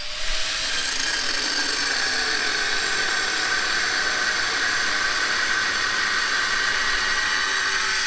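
Angle grinder with an abrasive disc grinding into a rusty steel truck frame, running steadily under load and throwing sparks.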